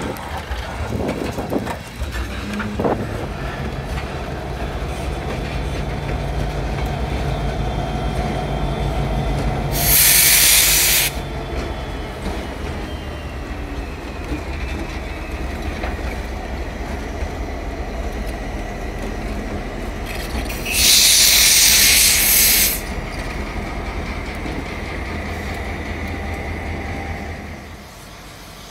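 Canadian Pacific freight train rolling past: diesel locomotives running with a steady low rumble over the sound of the cars on the rails. Two loud bursts of air hiss, each lasting one to two seconds, come about 10 and 21 seconds in. The sound drops off near the end.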